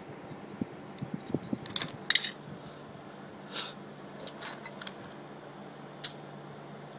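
Small metal parts and hand tools clinking and clicking while a 7/8-inch coaxial cable connector is worked on by hand. The clinks come in a quick cluster, loudest about two seconds in, followed by a few short scrapes and a single click near the end.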